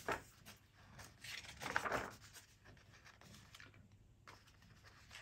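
Pages of a hardback cookbook being turned by hand: soft paper rustles and brushing swishes, a few in a row, the loudest about two seconds in.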